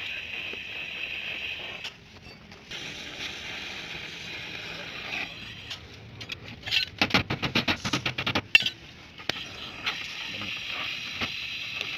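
A gas welding torch hissing steadily, interrupted about halfway through by a quick run of hammer taps on the car's steel body panel, roughly a dozen sharp blows in about two seconds.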